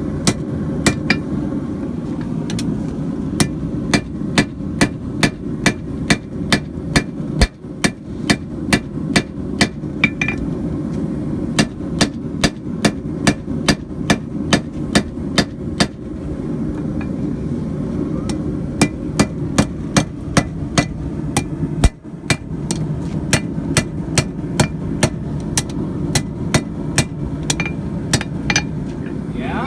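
A hand hammer strikes hot coil-spring steel on an anvil, flattening it into a blade shape. The blows come in runs of about two a second, with a few short pauses. A steady low rumble runs underneath.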